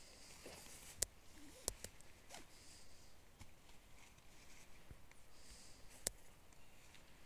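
Quiet handling of a nylon camping tent while it is pitched: faint rustling of the fabric with a few sharp clicks, the loudest about one second in and about six seconds in.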